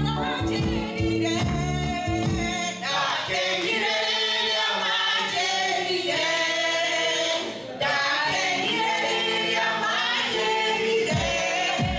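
A mixed group of men's and women's voices singing a gospel song together. The deep, beating accompaniment stops about three seconds in, and the voices carry on alone.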